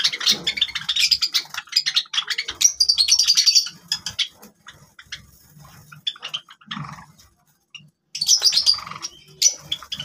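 A flock of Java sparrows chirping in quick, high, overlapping notes. The chirping is busiest in the first few seconds, thins out in the middle, and breaks out again near the end.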